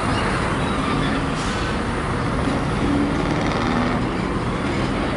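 Steady rolling rumble of a passenger train moving away on the rails.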